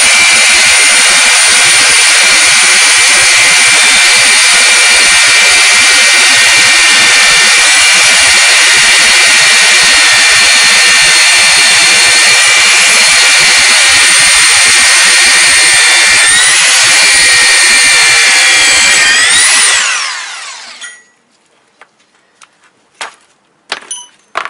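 Two Makita rotary hammers, an HR2470 and an HR2610, drilling together into a concrete block: a loud, steady whine with small pitch wobbles. Both wind down together about twenty seconds in, and a few light clicks follow.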